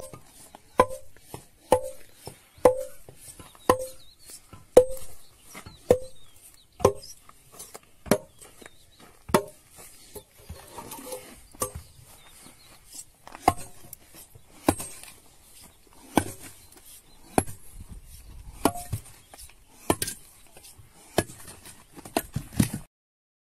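Sharp clacks of plastic CD and DVD discs, about one a second, the first few with a brief ring, as discs are stacked on a hydraulic press and then squeezed under its plate.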